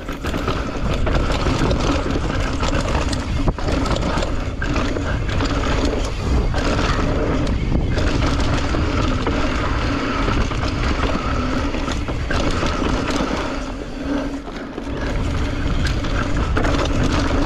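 Mountain bike descending dry dirt singletrack, heard from a bar-mounted camera: the tyres rumble and crunch over loose dirt and rocks, with the rattle and knock of the bike over bumps and wind on the microphone. Through it runs a steady buzzing hum, typical of the rear hub freewheeling while coasting, which fades briefly about 14 seconds in.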